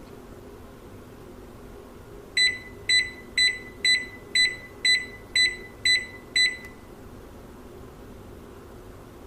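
Microwave oven beeping nine times in a row, about two high beeps a second, over a steady low hum.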